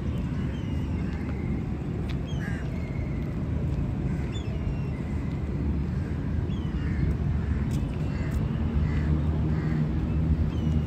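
Park ambience: crows cawing and other birds calling now and then over a steady low rumble of city traffic, with a vehicle engine hum growing near the end.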